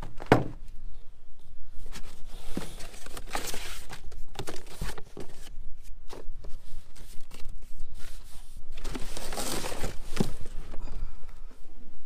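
Cardboard packaging being handled: flaps rustling and scraping with irregular knocks, opening with a sharp knock and with two longer scraping rustles, one a few seconds in and one near the end.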